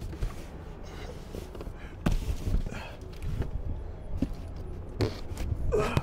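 Handling noise: several separate knocks and bumps over a low rumble, with a brief gliding squeak-like sound near the end.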